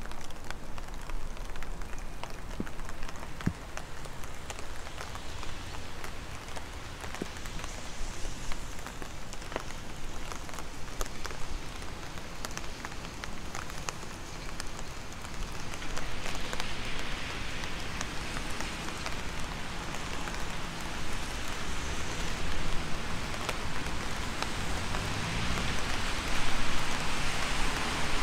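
Rain falling, a steady hiss with many separate drops ticking close by. The hiss grows louder about halfway through.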